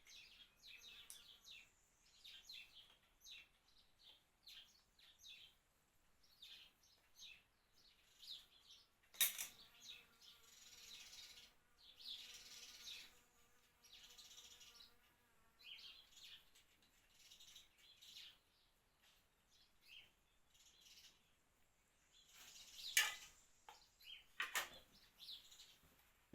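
Faint birds chirping in the background, with a few sharp clicks, the loudest about 9 seconds in and near the end.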